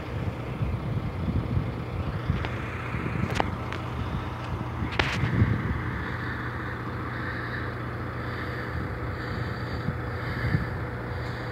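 Wind buffeting the microphone over a steady low hum, with a few sharp knocks in the first half.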